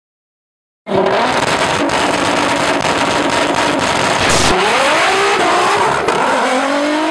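Car sound effect over an intro logo: a car engine at high revs starting abruptly about a second in, its pitch climbing in several rising sweeps in the second half, with a brief sharp hiss a little past the middle.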